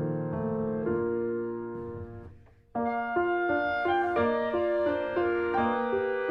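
Background piano music: slow held notes that fade away about two and a half seconds in, then a new, livelier phrase starts abruptly.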